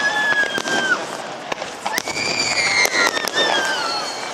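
Fireworks display: aerial shells bursting with sharp bangs and crackling. Over them come two long high tones, each about a second long and falling in pitch at the end.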